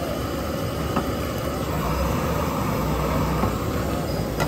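Steady noise of a stall's gas burner under an omelette frying in a steel pan, with a sharp click about a second in and another near the end.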